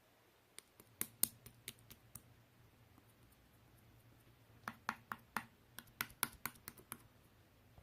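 Light, irregular clicks like typing: a handful about a second in, then a quicker run of clicks between about four and a half and seven seconds in.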